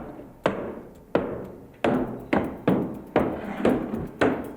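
Steady hammering: about eight blows at roughly two a second, each with a short ringing decay.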